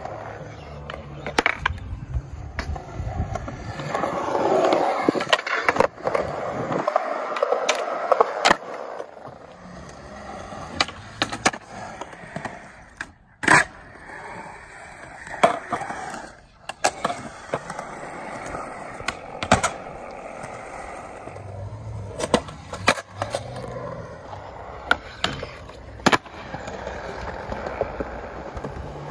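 Skateboard wheels rolling on concrete, broken by many sharp clacks of the board's tail popping and the board slapping down on the ground. The rolling grows louder about four to six seconds in, and the loudest clack comes about halfway through.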